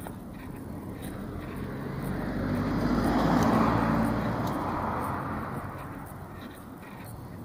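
A motor vehicle passing by: its engine noise grows louder to a peak about three and a half seconds in, then fades away.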